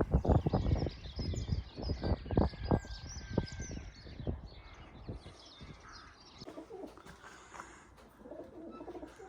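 Small birds chirping over a run of dull thumps for the first four seconds or so, then pigeons cooing softly in the second half.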